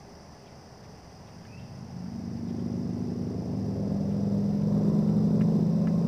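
A motor vehicle's low, steady engine hum grows louder from about two seconds in and stays loud to the end. A few faint short bird chirps sound over it.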